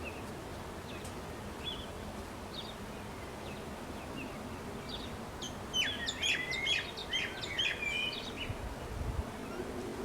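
Birds chirping over steady outdoor background noise, with a burst of quick, rapid chirping from about five and a half to eight and a half seconds in.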